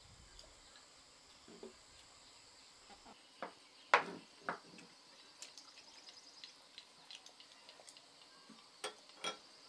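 Scattered light clinks and taps of bowls and utensils as people eat, the sharpest about four seconds in, over a steady high chirring of insects.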